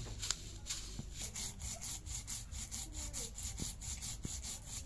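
Stone muller scraping back and forth over a flat stone grinding slab (sil-nora), crushing mustard seeds, in a quick steady rhythm of strokes. A sharp tap sounds just after the start.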